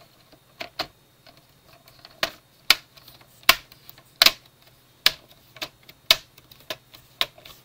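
Plastic clips of a Fujitsu Lifebook U758's screen bezel snapping into place as the bezel is pressed down around the edge of the lid: about a dozen sharp clicks, irregularly spaced.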